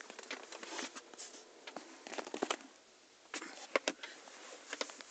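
Plastic pet carrier being handled by hand: scattered clicks, taps and scrapes of hard plastic, with a brief scratchy rattle around two seconds in and a sharp click just before four seconds in.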